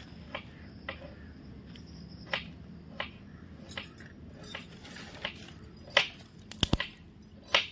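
Kitchen utensils and dishes being handled: scattered light clicks and knocks, irregularly spaced, with a sharper double click near the end.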